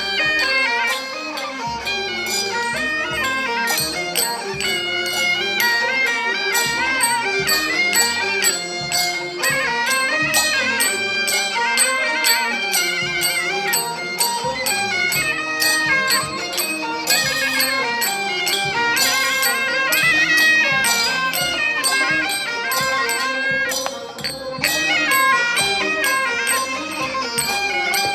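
Background music in a traditional folk style: a melody moving in steps over a steady beat.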